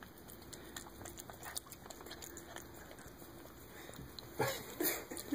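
Domestic cat lapping thick ranch dressing from a bowl: faint, irregular wet clicks of its tongue, with two louder short noises near the end.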